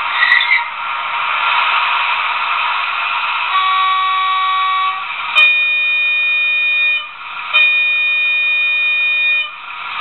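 Trix 22823 H0 model of a DB V 100 diesel locomotive, its DCC sound decoder playing the diesel engine running through the small onboard speaker. Horn blasts sound over it: a shorter, lower one about three and a half seconds in, then two longer, higher ones.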